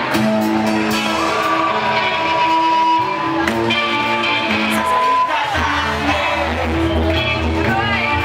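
Live surf rock band playing with electric guitars and drums, loud and continuous.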